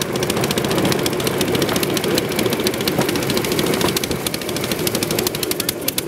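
Bamboo train (norry) running along the rails: its small single-cylinder engine chattering at speed in a fast, even run of pops, over the steady rumble of the ride.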